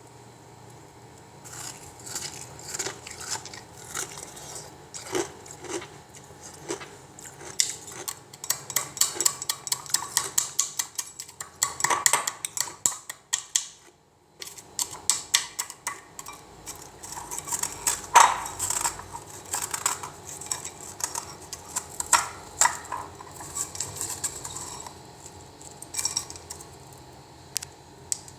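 Freezer ice being crunched: a dense, irregular run of sharp cracking and crunching sounds, with a brief pause about halfway through.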